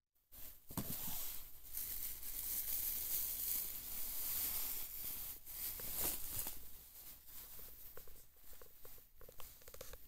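Cardboard box and packaging rustling and scraping as a bottle-shaped wine tool set case is pulled out of it. Lighter taps and knocks of handling follow in the last few seconds.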